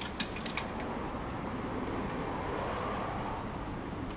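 A few sharp clicks in the first half-second as the stopped motorcycle is handled, then a faint rushing sound that swells and fades over a couple of seconds, like a vehicle passing by. The single-cylinder engine is not running.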